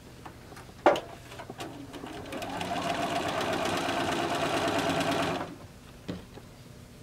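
Bernina sewing machine stitching a seam: after a sharp click about a second in, the machine speeds up and runs steadily for about three seconds, then stops, with another click shortly after.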